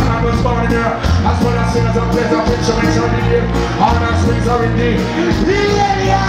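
Live reggae/dancehall music played loud through a concert PA: a heavy, steady bass line with keyboards, and the singer's voice over it through the microphone.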